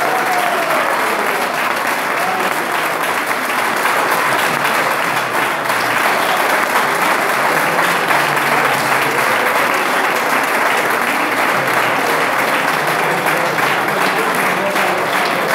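Audience applauding steadily, with a few voices mixed into the clapping.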